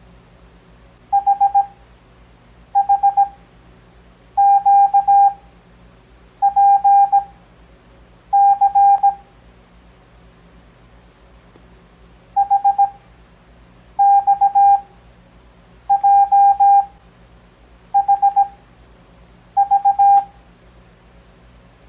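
Morse code (CW) practice tones: ten characters keyed as short and long beeps of one steady tone, each character followed by a long pause, with a longer pause after the fifth. The letters are sent in Farnsworth timing, at 17 words per minute within each character but 6 words per minute overall. A faint steady hum lies underneath.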